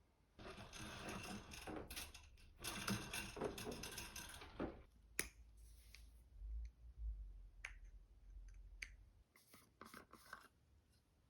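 Rustling and scraping handling sounds for the first few seconds, then a sharp click about five seconds in, followed by a few fainter clicks and a short rustle near the end.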